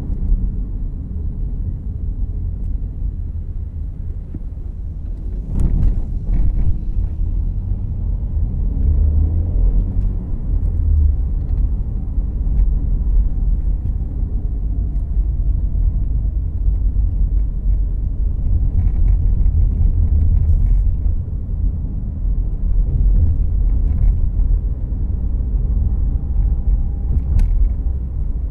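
Cabin noise of a 2014 Volkswagen Jetta Clásico on the move, heard from the passenger seat: a steady low rumble of engine and tyres on the road, with a single thump about six seconds in.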